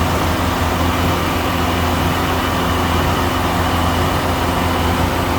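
A heavy engine running steadily at idle, a constant low drone.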